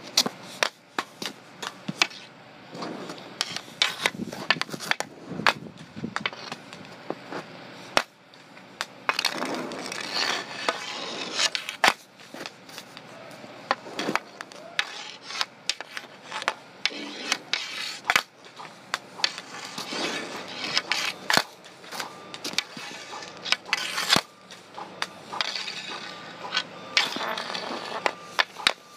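Street hockey stick and ball on asphalt: the blade clacks irregularly against the plastic ball and scrapes along the pavement, with several sharper, louder hits along the way.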